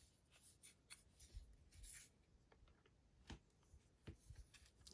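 Faint handling sounds from a camera lens being turned over in the hands: light rubbing with a few small clicks, the sharpest about three and four seconds in.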